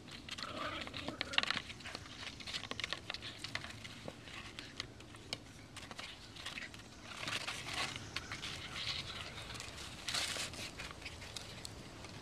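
A cardboard construction tube scraping and crinkling on dirt as a Border Terrier puppy noses, pushes and mouths at it: irregular scratchy rustling with many small clicks, coming in uneven spells.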